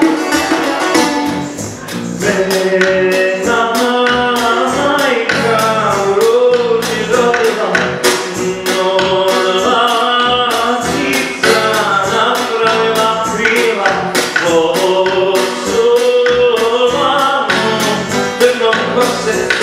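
A man singing a Bosnian sevdah song, accompanying himself by strumming a plucked lute. The strums come in an even rhythm under the sung line.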